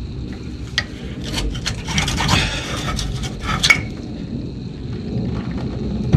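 Metal clicks and scraping as a rear brake caliper on a 2008 Ford F250 is worked free by hand and lifted off the rotor.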